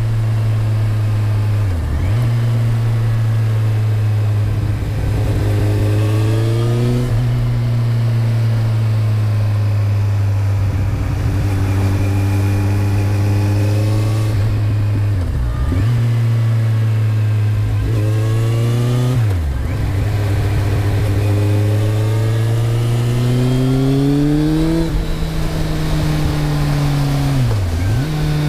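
2008 Kawasaki Z1000's inline-four engine running through a Mivv GP exhaust with the dB killer fitted, holding fairly steady revs. Its pitch drops sharply and recovers four times, and climbs gradually a little before the last drop.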